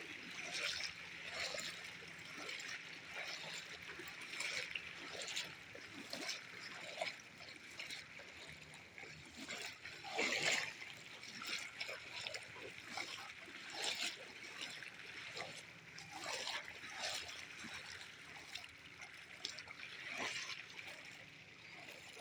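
Floodwater running in a strong current, with irregular splashes as someone wades through it; one louder splash comes about ten seconds in.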